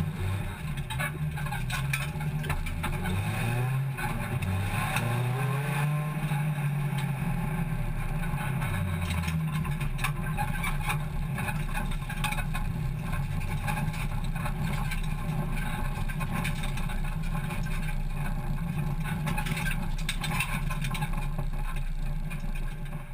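Hot hatch race car's engine running at low revs, heard from inside its stripped, caged cabin as it drives slowly. Its note rises and falls a few times in the first ten seconds, then holds steady, with scattered clicks and rattles.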